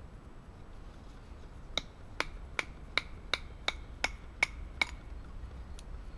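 A wooden branch used as a baton striking the spine of a Mora Clipper knife nine times in quick succession, about three blows a second, driving the blade down through a standing stick to split it. Each blow is a sharp knock with a short metallic ring from the blade.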